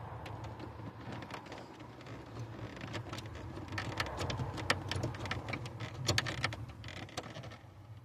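Hand working behind dashboard plastic trim: irregular plastic clicks and rustling, thickest in the middle of the stretch, over a steady low hum.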